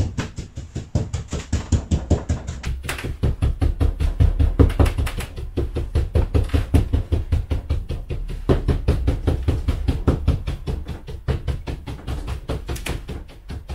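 Block stippling brush being dabbed rapidly onto a board coated with wet dark grey paint-and-varnish glaze, making dull, even knocks about five a second. This is the stippling stage that breaks up and evens out the freshly rolled glaze coat.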